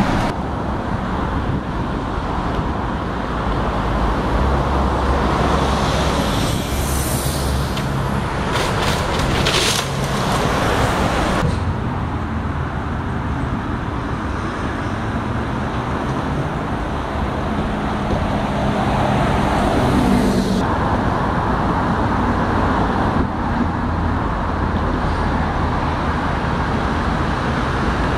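Steady road traffic on a dual carriageway: tyre noise and engine hum of passing cars and buses.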